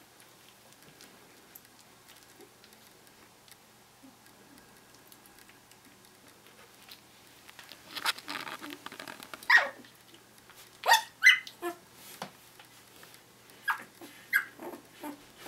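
One-week-old Finnish Lapphund puppies squeaking and whimpering in their sleep. About halfway through, a string of short, high squeaks begins, several of them sliding down in pitch.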